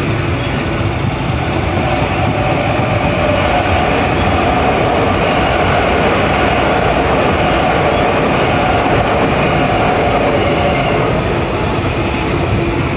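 JR Freight container train of flat wagons passing through close by: a loud, steady rumble and rattle of wheels on the rails.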